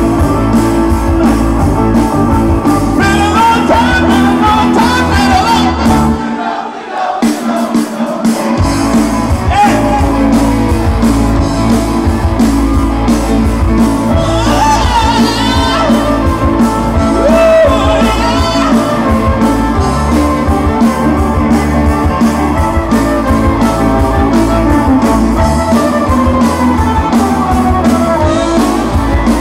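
Live rock band playing, with a man singing lead over electric guitar, drums and bowed violins. The bass and drums drop out for about two seconds, six seconds in, before the full band comes back.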